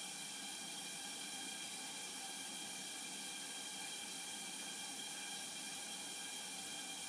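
Portable propane heater hissing steadily as its gas burner runs.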